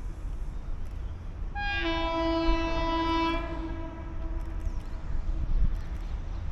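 Vande Bharat Express electric multiple-unit train sounding its horn in one blast of just under two seconds, starting about one and a half seconds in, over the steady low rumble of the train running.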